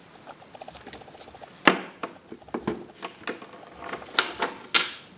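A bunch of keys jangling and clicking against a lawn tractor's dash panel as a key is worked into the ignition switch. It is a scatter of small rattles and sharp clicks, with the loudest click about a third of the way in and a cluster of clicks near the end.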